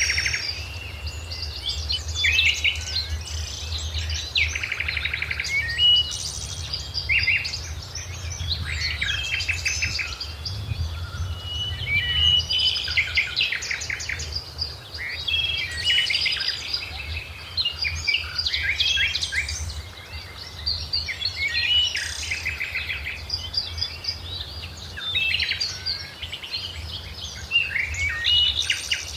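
Several birds singing and calling at once: overlapping chirps and rapid trills throughout, over a steady low background hum.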